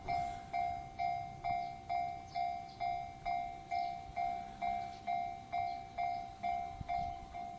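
Japanese railway level-crossing warning bell ringing its electronic ding about twice a second, each ding fading before the next. It signals that a train is approaching and the crossing is closed.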